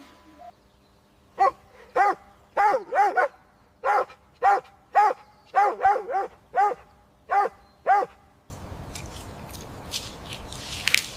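A dog barking: about a dozen short barks, some in quick pairs and threes. Near the end the barking stops and a crackling, crunching noise begins.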